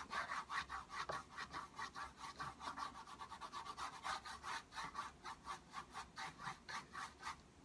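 Paintbrush bristles scrubbing oil paint onto a canvas in quick back-and-forth strokes, about five a second, that stop shortly before the end.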